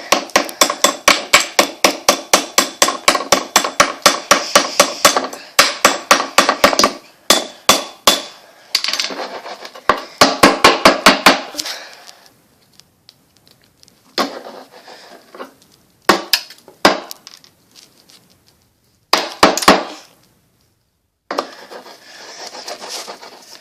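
A small hammer chipping at a block of ice frozen around a toy car. Quick, sharp strikes come about five a second for the first half, then shorter runs of taps with pauses between them.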